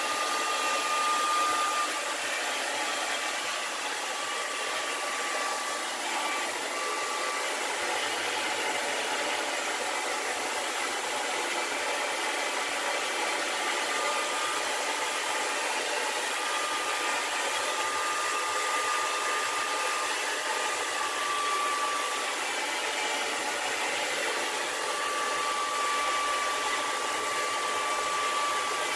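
Heat gun or hair dryer blowing hot air over tint film on a car light lens: a steady rush of air with a thin motor whine that fades in and out.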